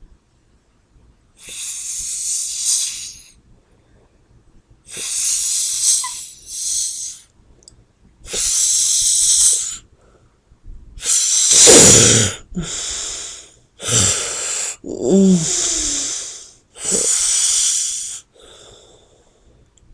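A person snoring while asleep: about ten loud, hissing breaths, each a second or so long, with short pauses between them. In the second half the breaths grow heavier, and one has a wheezing snort that rises and falls in pitch. The uploader puts this kind of snoring down to sleep apnea.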